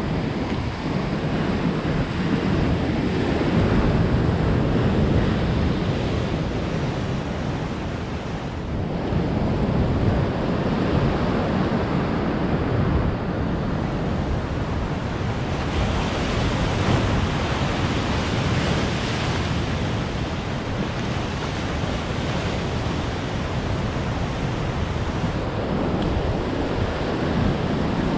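Ocean surf breaking and washing in over rocks and sand, a loud steady wash that swells and eases, with wind rumbling on the microphone.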